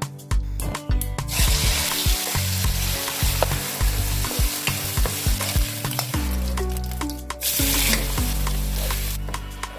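Food sizzling as it fries in hot oil in a deep frying pan, starting about a second in, dropping away at about six seconds and flaring up again briefly near eight seconds.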